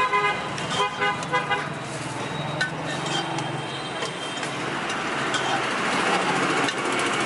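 A vehicle horn honks in a quick run of short toots in the first second or two, over steady street traffic noise.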